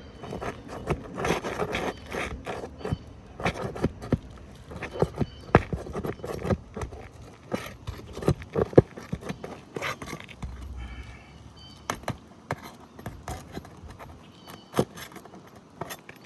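Hand tool working an asphalt roof shingle loose: irregular metallic clicks, taps and scrapes against the shingle and its nails as it is pried up.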